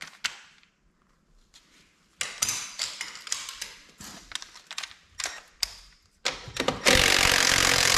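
Cordless impact driver hammering steadily from about seven seconds in, loosening a bolt on the ATV's inner clutch cover. Before it comes a run of clicks and knocks as the tool and socket are fitted onto the bolt.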